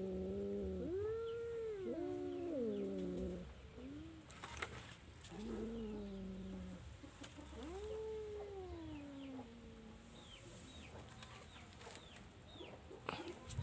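Domestic cat meowing repeatedly: about five long, drawn-out meows that rise and fall in pitch, the last near ten seconds in.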